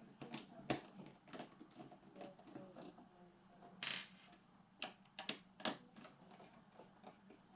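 Scattered light clicks and taps of an Xbox 360 disc drive's small parts being handled during disassembly, with one brief rasping scrape about four seconds in.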